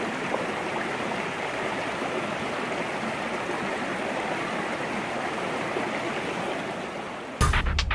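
Steady rush of flowing stream water. Loud music cuts in abruptly near the end.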